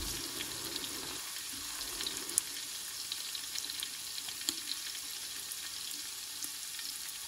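Chopped onion frying in hot oil in an aluminium pressure-cooker pot: a steady sizzle with scattered crackles and a few sharper pops.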